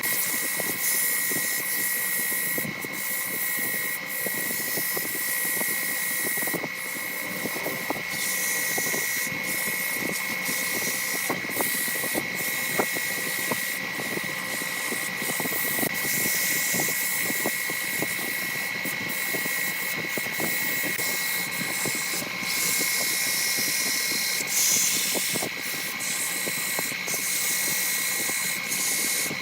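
Woodturning lathe running with a steady high-pitched whine, over an even hiss with scattered light ticks from a tool working the spinning wood.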